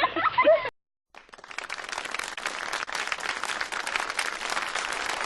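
A crowd applauding, many hands clapping in a dense patter that fades in about a second in, after a voice breaks off and a brief moment of silence.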